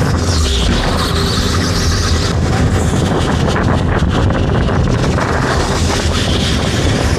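Electric go-kart running at speed, heard from on board: a steady, loud running noise with a faint motor whine.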